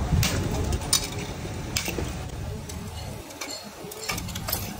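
Bolt cutters snipping through the wire spokes of a motorcycle wheel: four sharp metallic snaps at uneven intervals, three close together in the first two seconds and one near the end.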